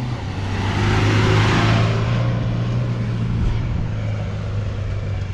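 Off-road 4x4's engine running with a steady drone as it climbs a steep dirt track, with a hissing rush that swells and fades over the first two seconds or so.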